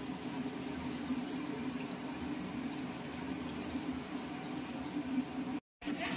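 Potatoes frying in oil in a pan, a steady sizzle. The sound cuts out for a moment about five and a half seconds in.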